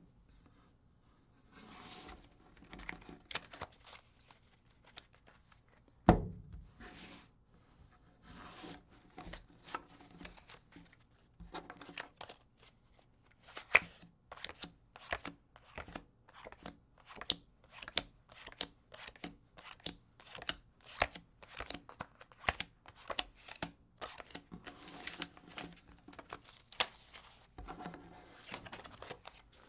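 A deck of playing cards being handled and shuffled: irregular quick card snaps and short rustles, coming faster and thicker after the first dozen seconds. One sharp knock about six seconds in is the loudest sound.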